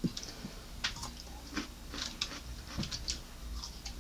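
Close-up chewing of food, with small crunches and wet mouth clicks a few times a second.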